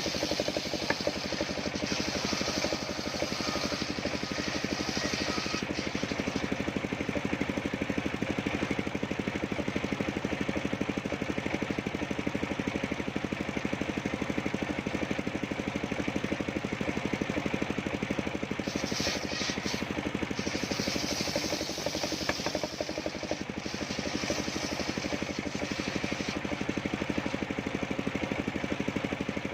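Engine driving a homemade circular sawmill, running steadily, with a higher hiss that comes and goes twice.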